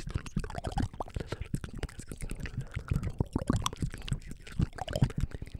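Close-up mouth sounds into a microphone, made with a hand cupped over the mouth: a dense, irregular run of wet clicks, smacks and pops mixed with breathy, unintelligible whispering.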